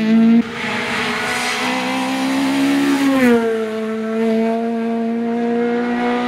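Rally car engines at high revs. One sound breaks off abruptly about half a second in and another car's engine takes over, held high with a gear change about three seconds in that drops the pitch, then running steadily at high revs.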